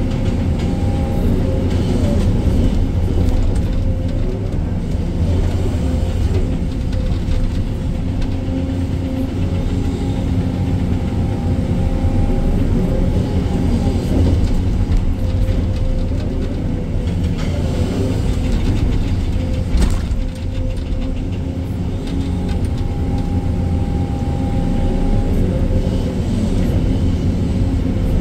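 Sany 305 excavator's diesel engine running steadily under working load, with a hydraulic whine that rises and fades as the machine moves, and a few sharp knocks, one about twenty seconds in.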